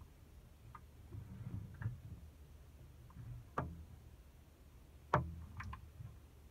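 A few small sharp ticks, the two loudest about three and a half and five seconds in, over a low uneven rumble.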